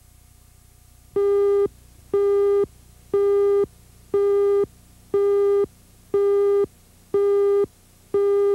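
Tape countdown leader beeps: eight half-second tones, one a second, all at the same steady, buzzy pitch, starting about a second in.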